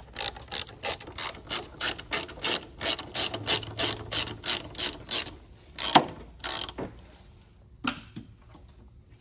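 Ratchet wrench with a 10 mm socket clicking as it tightens a bolt back down, about three clicks a second. A couple of louder knocks follow about six seconds in, then it goes quieter.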